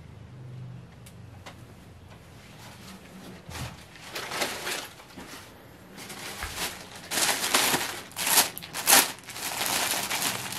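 Clear plastic packaging of a folded suit piece crinkling and rustling as it is handled and set down. The rustling comes in irregular bursts, sparse at first and louder and busier in the second half.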